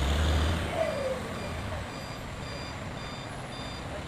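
A truck's reversing alarm beeping at an even rate, over a heavy diesel engine running low, which is strong for the first couple of seconds and then fades down.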